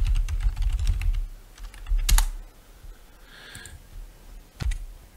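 Computer keyboard being typed on: a quick run of keystrokes, then single sharper clicks about two seconds in and near the end.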